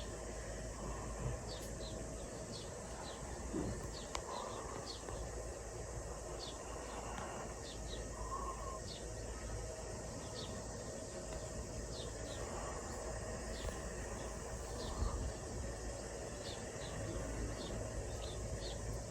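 Outdoor nature ambience: a steady hiss under short high chirps that recur every second or so, with a few softer, lower calls now and then.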